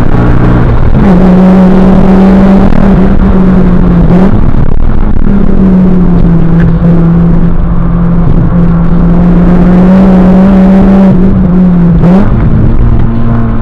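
Honda Civic Si's 2.4-litre four-cylinder engine pulling hard on track, heard from inside the car over heavy road and wind noise. Its pitch holds steady for long stretches and drops briefly around 4 s and near 12 s before rising again, as the driver lifts or shifts. The upload is sped up, which raises the pitch.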